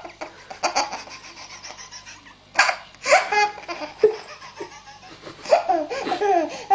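Baby laughing in several bursts separated by short pauses, the longest run of laughter near the end.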